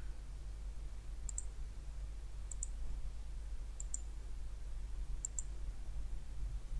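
Computer mouse button clicking: four crisp clicks, each a quick press-and-release double tick, about one and a quarter seconds apart, over a faint low hum.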